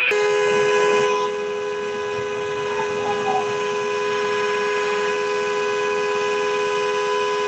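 Car horn sounding continuously with two steady notes together, starting abruptly at the outset and held without a break.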